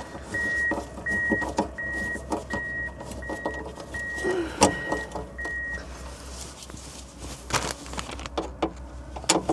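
Low steady engine rumble of snow groomers (piste bashers) working in the background. Over it, a high electronic warning beep repeats about every three-quarters of a second and stops about six seconds in. Scattered clicks and knocks are heard throughout.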